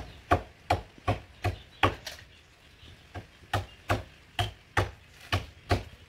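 Hand-tool chopping blows biting into a coconut palm trunk: a quick run of sharp strikes about three a second, a pause of about a second, then another run.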